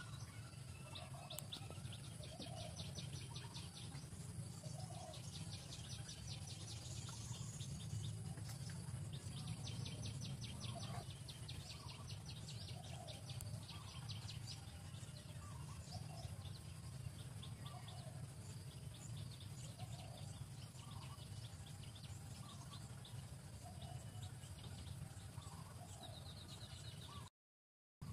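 Small birds chirping, with bursts of fast high trills and short soft calls about once a second, over a steady low hum. The sound cuts out briefly near the end.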